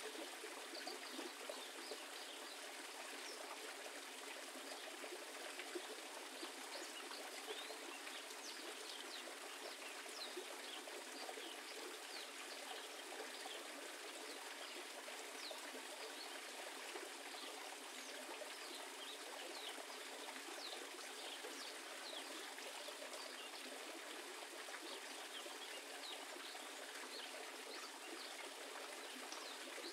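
Steady trickling, flowing water, like a small stream. Faint short high chirps are scattered through the middle stretch.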